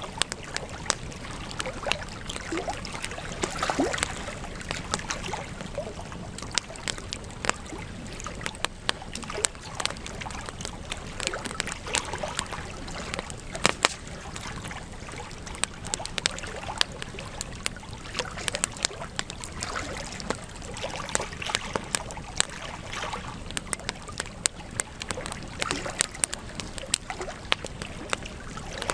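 Wood fire crackling, with frequent irregular sharp pops and snaps over a steady hiss of burning.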